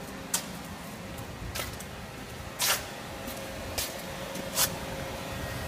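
Steady low hum with a faint constant tone, crossed by five short sharp clicks about a second apart, the loudest near the middle.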